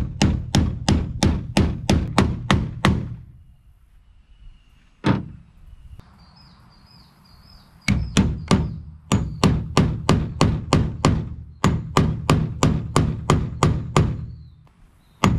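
Ball-peen hammer striking a metal driver tool, tapping a new seal into a Sea-Doo jet pump housing. Quick blows about three a second, in two long runs with a pause between, a single blow in the pause and another near the end.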